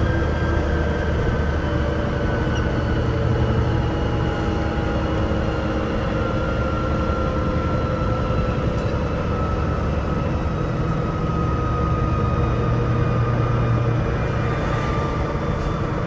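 Concrete mixer truck's diesel engine running steadily at freeway speed, with road noise, heard from the cab: a steady low rumble with a faint tone that drifts slowly lower.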